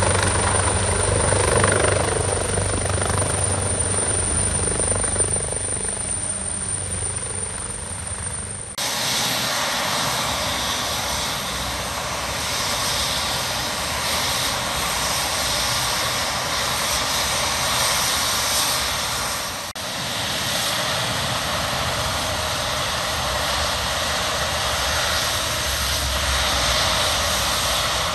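AgustaWestland AW139 helicopter's rotor and twin turbine engines. First the rotor beats as it hovers low to land. After a sudden cut about nine seconds in, there is the steady turbine whine and rotor swish of the helicopter running on the ground.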